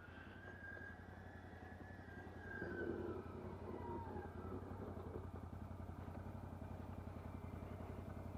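CFMoto CForce 800 ATV's V-twin engine idling steadily as it warms up, getting a little louder about two and a half seconds in.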